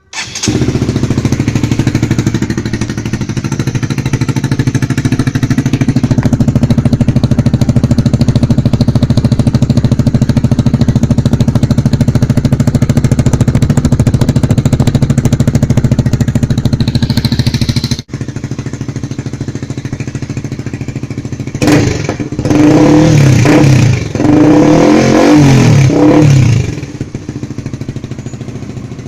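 Honda CBR150R K45G's single-cylinder engine running through a Proliner TR1 short full-system exhaust, a loud steady note. Suddenly it becomes quieter, and then the throttle is blipped twice, the pitch rising and falling with each rev.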